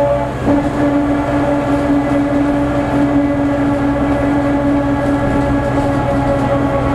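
Worn planetary hub-reduction gears of an MCW Metrobus double-decker whining loudly as the bus drives, over the drone of its Gardner diesel, heard from inside the bus. About half a second in, the whine shifts down to a lower tone that then holds steady. The whine is the sign of worn planet gears in the axle hubs.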